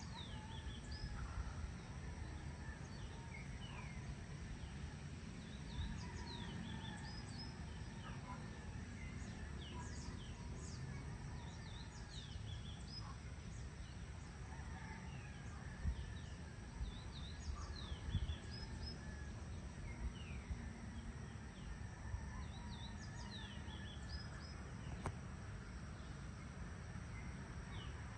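Many birds calling outdoors: scattered short high chirps and quick downward-sliding whistles from several birds, over a steady low rumble.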